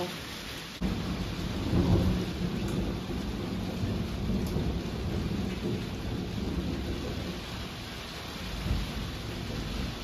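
A long roll of thunder that starts abruptly about a second in, is loudest a second later and rumbles on, over heavy rain falling on the greenhouse roof.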